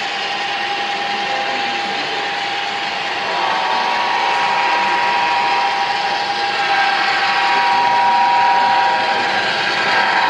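Model diesel locomotives running on the layout: a steady motor whir and hiss, with a higher whine coming in about three seconds in as the engines draw near.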